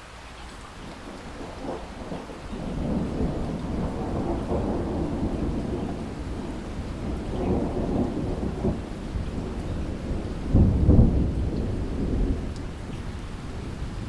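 Steady rain falling, with a long low rumble that builds from about two seconds in, swells and ebbs several times, is loudest a little before the end and then eases off.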